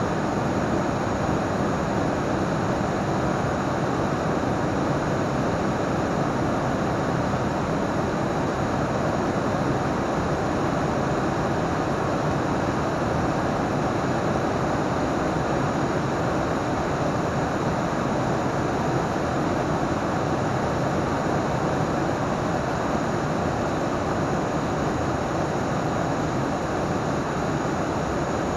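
Steady noise of an ATR 42-500's twin turboprop engines, propellers and airflow heard inside the cockpit, an even rushing drone with faint steady tones and no changes.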